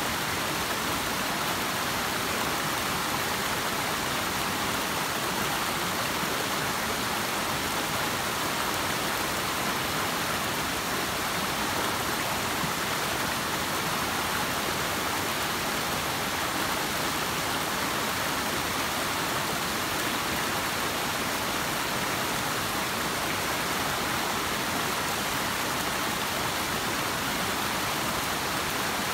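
Forest stream rushing over rock slabs: a steady, unbroken rush of water.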